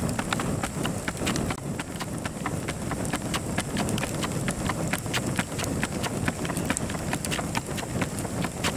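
Wood fire crackling under a grill of roasting freshwater mussels: rapid, irregular sharp pops and cracks over a low rush of flame.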